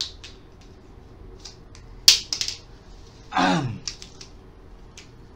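Scattered sharp plastic clicks of whiteboard marker caps being pulled off and pushed back on, the loudest about two seconds in. A short vocal sound, falling in pitch, comes about three and a half seconds in.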